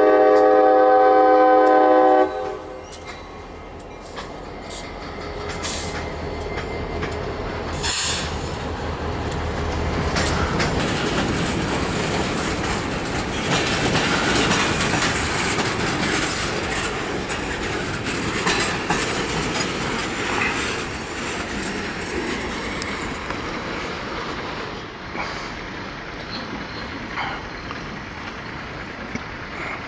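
CSX diesel freight locomotive's air horn sounding a loud steady chord, cutting off about two seconds in. The train then rolls past: the locomotive's engine rumble fades within about ten seconds, and a string of tank cars follows with wheels clattering over the rail joints and occasional sharp clicks.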